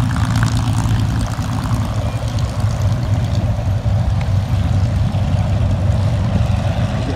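Piston engines of a World War II propeller fighter running at idle on the ground, a steady low drone.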